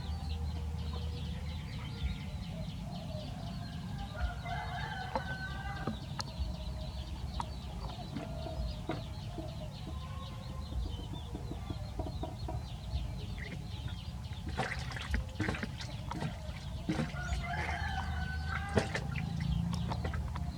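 Repeated animal calls, short pitched cries that bunch together twice, over a low steady hum.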